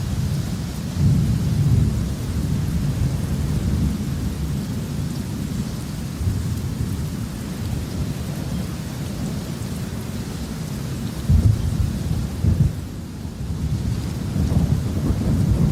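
Thunder rumbling over steady rain. The deep rolls swell about a second in, come loudest in two sharp peaks about two-thirds of the way through, then build again near the end.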